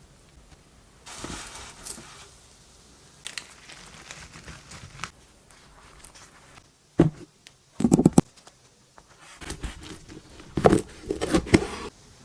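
Food and kitchen handling noises: tearing, crinkling and scraping, broken by sharp knocks about seven and eight seconds in and a louder run of knocks and rustling near the end.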